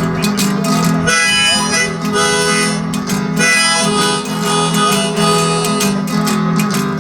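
Harmonica playing a solo over strummed acoustic guitar: the instrumental break of a blues song.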